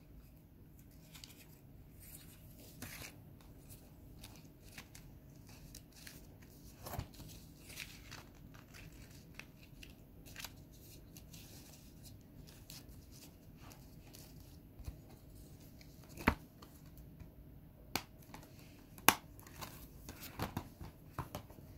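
Faint handling of a plastic Blu-ray case and its discs: low rustling and shuffling with scattered sharp plastic clicks, the loudest ones in the second half.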